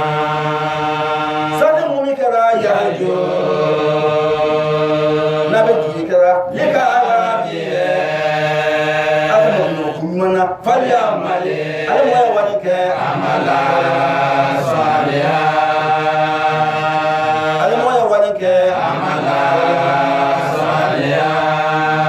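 A man chanting an Islamic recitation in long, drawn-out held notes, pausing briefly for breath between phrases.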